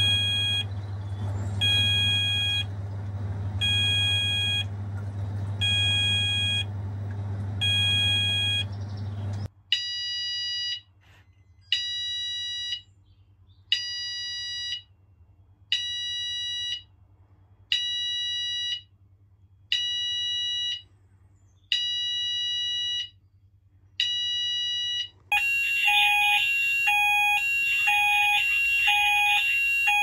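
Fire alarm sounders giving the intermittent alert tone, short repeated beeps about every second and a half to two seconds, which signals the investigation delay; a low hum sits under the first third. Near the end the sounders switch to the evacuate tone, a continuous fast-warbling alarm with a slower pulsed lower tone under it.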